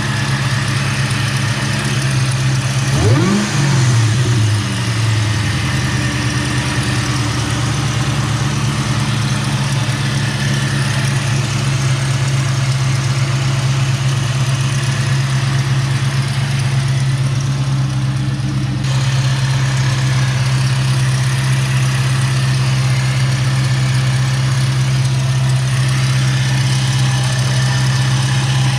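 2004 Mustang Cobra's supercharged 4.6-litre V8 idling under the open hood, with one brief blip of revs about three seconds in. The noise being shown is a squeal-chirp from the accessory drive, which the owner suspects is a worn original belt tensioner.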